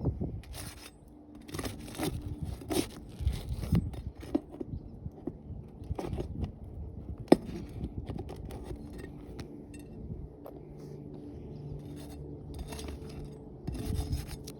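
Irregular scraping and sharp clicks of hand work on asphalt roof shingles during a wind-crease repair, with a steady low hum coming in about two-thirds of the way through.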